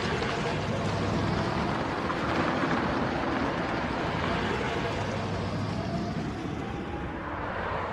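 Taxi cab driving through city traffic: steady road and engine noise.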